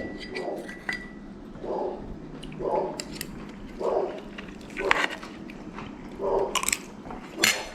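Light clinks and knocks of objects being handled, several short sounds spread over a few seconds.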